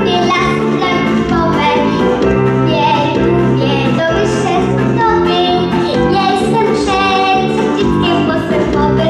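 A young boy singing a song into a microphone over instrumental accompaniment.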